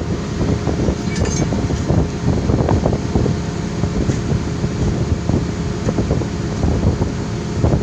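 Excavator diesel engine running steadily, with wind buffeting the microphone.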